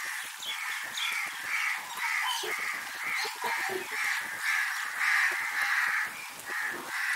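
Crows cawing over and over, about two harsh caws a second, over a steady hiss.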